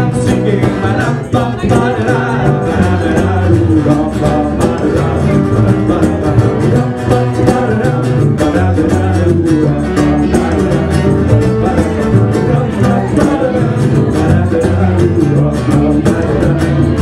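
Live band music: acoustic guitars strummed over an electric bass line, playing steadily without a break.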